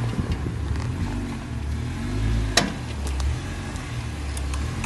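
Jeep Wrangler's engine running at low revs as it crawls over rock, the engine note swelling and easing a few times with the throttle. A single sharp knock about two and a half seconds in.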